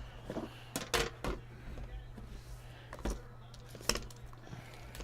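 Sharp clicks and light taps from handling trading-card boxes and packs, over a steady low electrical hum.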